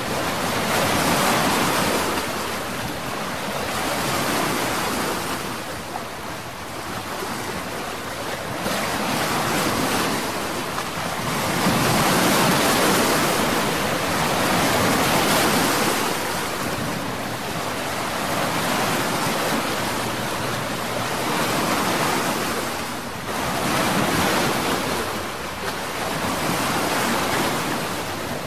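Rushing sea and wind noise, swelling and easing every few seconds like waves washing in, with no engine tone or voices over it.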